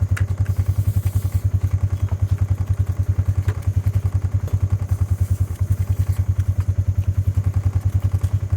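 An engine running steadily, with a fast, even low pulsing, and a few faint clicks and knocks over it.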